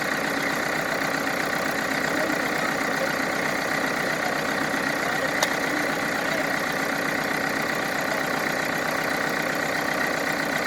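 Heavy equipment's engine running steadily at a low, even speed, with one brief click about halfway through.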